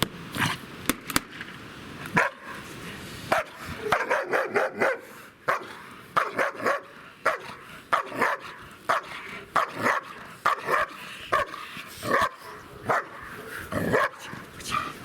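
German Shepherd barking over and over, short sharp barks coming singly and in quick runs.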